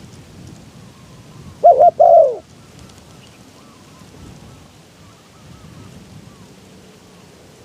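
Spotted dove cooing: one loud two-part coo about one and a half seconds in, a short note followed by a longer falling one. Fainter dove calls come and go in the background over a low rumble of wind.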